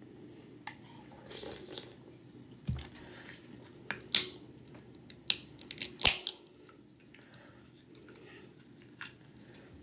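Mouth sounds of drinking from a can of carbonated drink (a sip and swallowing), followed by a light knock and several sharp clicks as the aluminium can is handled. The clicks, bunched between about 4 and 6 seconds in, are the loudest part.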